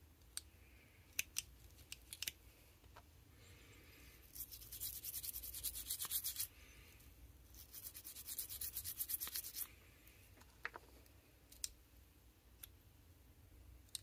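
Toothbrush scrubbing the tool channels of a vintage Victorinox Camper Swiss Army knife, in two quick spells of rapid strokes of about two seconds each. A few light clicks of the knife's tools being handled come before and after.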